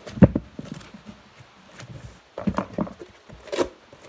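Close handling noise: irregular knocks and rustles right at the phone's microphone, the loudest knock about a quarter second in and a sharp crackle a little after three and a half seconds.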